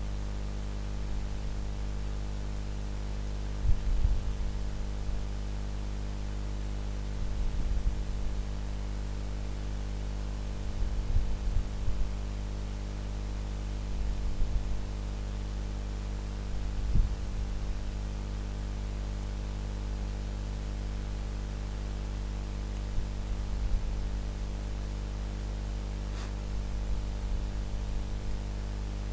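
Steady electrical mains hum, several tones stacked together over faint hiss, with a few short low bumps scattered through it.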